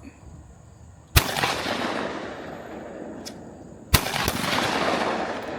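Two shotgun shots about three seconds apart, each a sharp report followed by a long rolling echo that fades over a couple of seconds.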